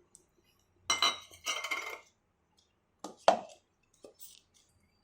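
Kitchen utensils clattering as chopped tomatoes are put into a mixer-grinder jar: a scraping rattle about a second in, then a couple of sharp clinks just past the middle and a few light ticks after.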